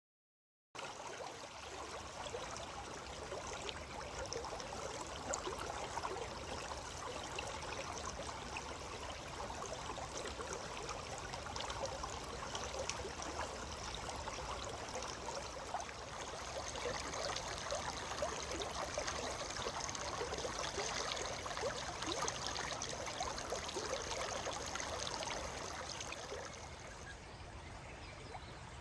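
Steady rushing of a river flowing past.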